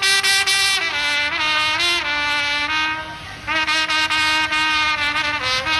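A solo wind instrument playing a slow melody of held notes, with a short break about three seconds in before the tune resumes.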